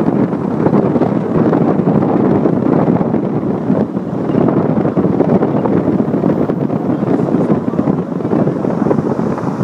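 Steady wind rush buffeting the microphone of a camera filming from a moving car.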